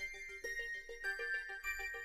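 Background music: a light tune of quick, repeated struck notes.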